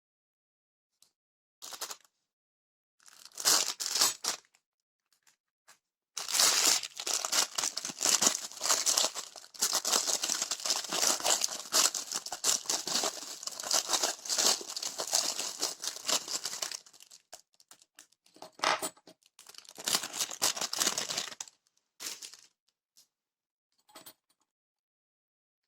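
Packaging being torn open and crinkled by hand while adhesive hooks are unboxed. There are a few short rustles, then about ten seconds of continuous tearing and crinkling, then a few more bursts near the end.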